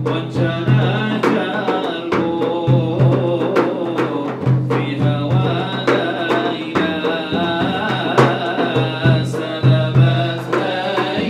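A male voice sings an Arabic devotional song into a microphone, over a drum beating a rhythm of low thumps.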